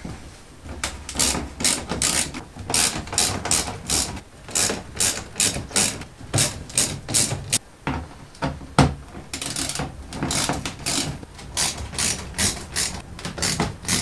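Hand ratchet wrench clicking in a steady run of quick back-and-forth strokes, with a couple of short breaks, as bolts holding the car's bumper cover are loosened.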